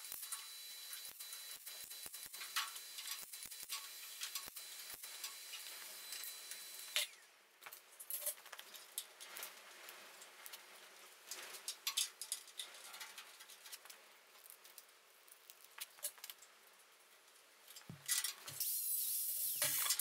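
MIG welder tacking a small sheet-steel repair piece into a car body's A-pillar corner: short bursts of crackling sizzle with scattered sharp clicks. Near the end a small power tool starts whirring.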